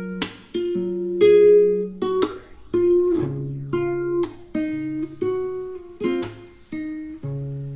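Lofi music: a plucked guitar playing chords, with a new chord about every second.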